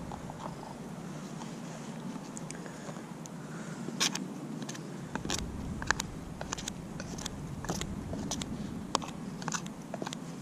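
Dendrobaena worms being chopped up for bait: a run of irregular crisp snips and crunches, one or two a second, with a few louder ones along the way.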